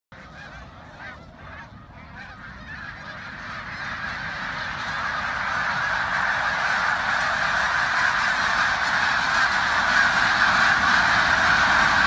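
A huge flock of snow geese honking together in a dense, continuous clamour that swells steadily louder as the flock takes flight.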